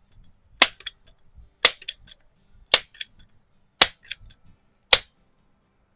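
Rochester Precision air rifle firing five shots about a second apart, each a sharp crack followed by a couple of fainter clicks.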